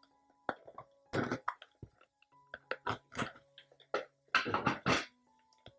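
Scissors snipping into a small paperboard box, with the box handled between cuts: a few short crackly bursts of cutting and rustling and some clicks, the loudest near the end.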